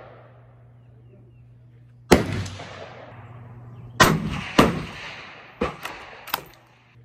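Rifle shots on an outdoor range, each a sharp crack trailing off in a long echo: a loud one about two seconds in, two more close together about four seconds in, then three fainter shots near the end.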